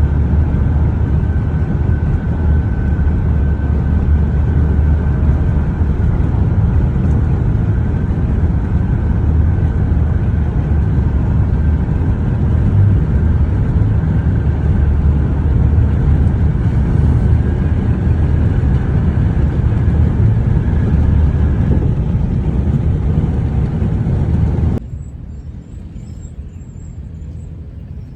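Steady low rumble of a vehicle on the road, with a faint steady whine. It drops off suddenly about 25 seconds in to a much quieter background with faint high chirping.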